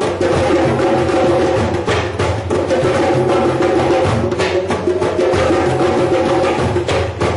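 Drum circle: many hand drums played together in a dense, steady rhythm, with wood-block-like clacks among the beats.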